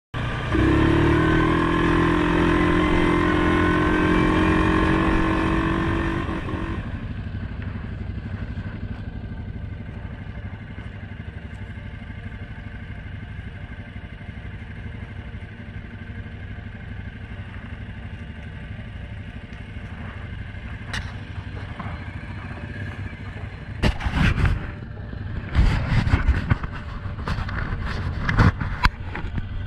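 ATV engine idling, louder with a rising note for the first six or seven seconds, then settling to a steady lower idle. A run of sharp knocks and bumps comes near the end.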